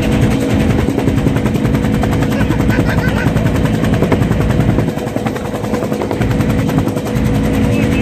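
Helicopter in flight heard from inside the cabin: a steady engine hum under a loud, rapid, even beat from the rotor.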